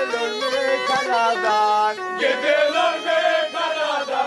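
Turkish Black Sea folk music: a tulum (Black Sea bagpipe) plays a quick, ornamented melody. About two seconds in, a fuller passage with male voices chanting along begins.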